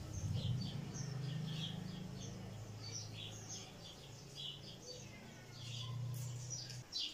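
Ansar sewing machine running while piping is stitched onto cloth: a steady low hum that stops shortly before the end. Small birds chirp over it throughout.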